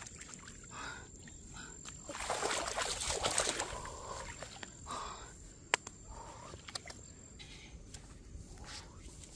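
Grass rustling and scuffling as live fish are grabbed and handled by hand, loudest for about two seconds from around the two-second mark, with a sharp click near six seconds.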